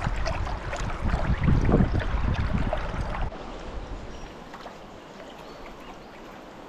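River water lapping and splashing right against the microphone, with a heavy low rumble and many small splashes for the first three seconds or so, then a softer, steady wash of moving water.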